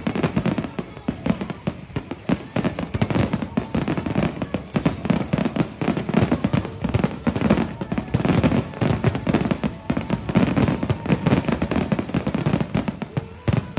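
Fireworks finale barrage: a dense, rapid run of overlapping bangs and crackles with no break.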